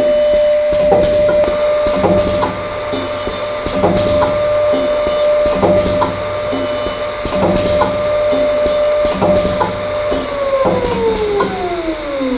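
Air-cooled high-frequency grinding spindle of a chip breaker slot grinder running with a steady high whine while the automatic cycle grinds slots into a carbide-tipped saw, with a regular knock of the indexing and feed strokes about every three-quarters of a second. About ten seconds in, the cycle completes and the whine glides steadily down as the spindle winds down.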